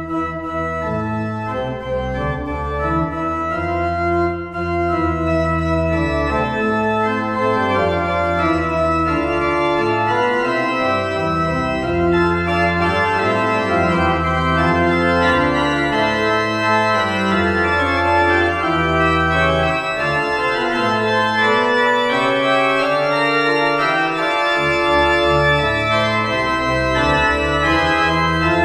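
Organ music, likely the postlude closing the service: full sustained chords over a bass line that moves in steps, starting suddenly.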